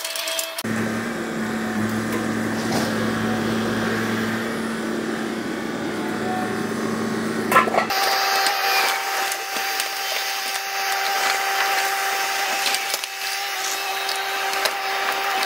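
Yanmar mini excavator working a hydraulic crusher attachment through brick and tiled masonry walls: crackling, grinding crunches of breaking masonry over the steady hum of the engine and hydraulics. The hum changes pitch twice, near the start and about halfway through, and there is a single sharp crack just before the second change.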